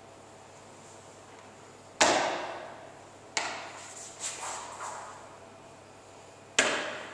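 Foot stamps and steps on a wooden floor: three sharp thuds, the first and last loudest, each ringing out in the echo of a large, bare hall, with a few lighter scuffing steps between them.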